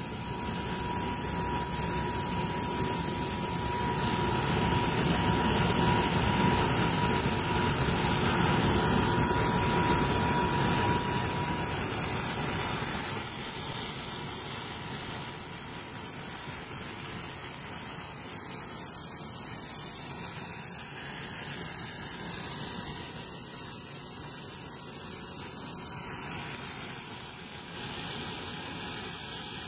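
Corn puff snack extruder running: a steady mechanical hum and hiss of its motors and extruding screw, with a steady high whine during the first dozen seconds. From about halfway the sound is a little quieter.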